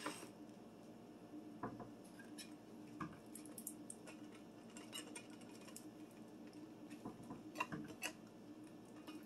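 Faint, scattered clinks and scrapes of a spoon against the inside of a tin can, working canned cranberry sauce out into a glass mixing bowl.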